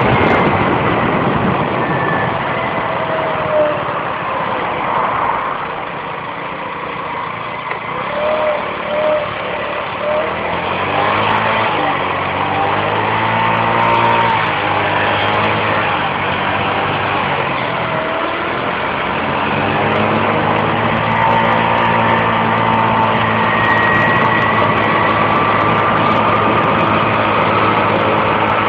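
Scooter engine running while riding. Its level and pitch dip about a quarter of the way in, it picks up again, and its pitch climbs steadily through the last third as it accelerates.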